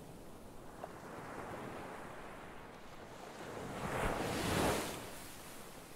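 Ocean waves washing, a rushing noise that swells up about four seconds in and then falls back.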